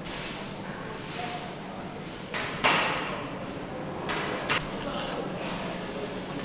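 Engine assembly work on a factory line: metal parts and tools knock and clink against an aluminium engine block, with one loud clank about two and a half seconds in and two smaller knocks about four seconds in. Short hisses come and go over a steady workshop background.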